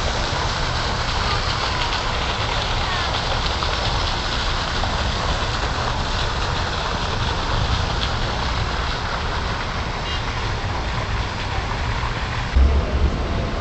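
Steady rushing outdoor noise with an irregular low rumble from wind buffeting a phone microphone.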